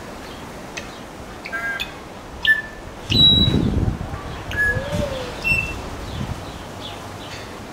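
Coleto (bald starling) calling: scattered short, high squeaky whistles and clicks, with a single low arched hoot about five seconds in. A low rustle, perhaps wing flaps, is the loudest sound a little after three seconds.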